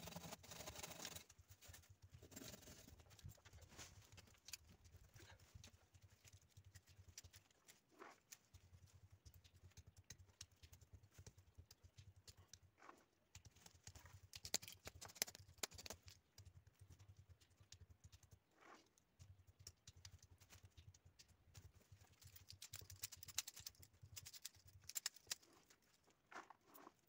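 Faint handling of cut pomegranate branches: quiet rustling with many small sharp clicks and snaps as the stems are sorted and trimmed into cuttings, a little louder at times.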